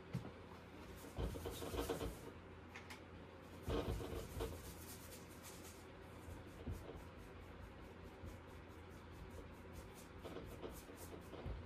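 Paintbrush rubbing and scrubbing, first on a palette in two louder bouts while mixing paint, then quieter, quick repeated strokes as paint is brushed onto a canvas.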